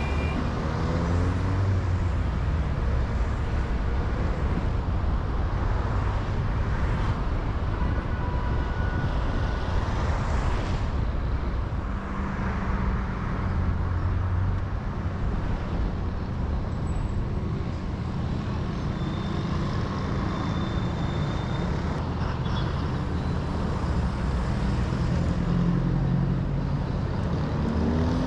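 Steady road and traffic noise while driving on a motorway: low engine and tyre rumble, swelling slightly now and then as other vehicles pass.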